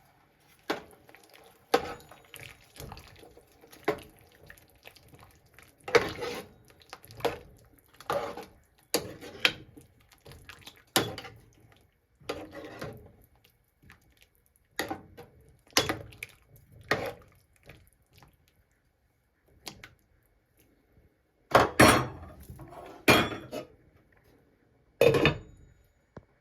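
Kitchen clatter of pots, pans and utensils: irregular short knocks and clinks, several in quick succession near the end being the loudest.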